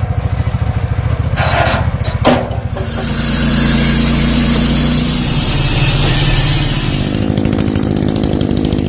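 Gas-engine-driven saw running and cutting through oak, the cut loudest from about three to seven seconds in.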